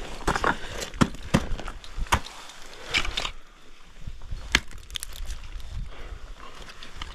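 Ice tools and crampons striking ice: a series of sharp, irregular impacts, with a brief scraping crunch about three seconds in, over low wind noise on the microphone.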